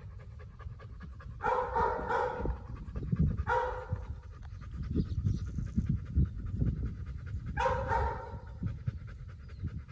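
German shepherd panting with its mouth open while its ears are being taped. Three brief voice sounds break in, about one and a half, three and a half and eight seconds in.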